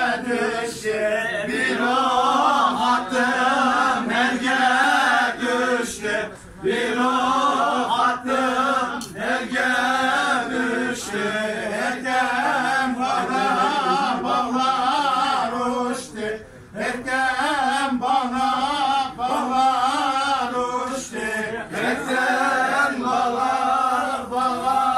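A group of men singing together in a chant-like folk song, in long wavering phrases over a steady held note, with short breaks about six and sixteen seconds in.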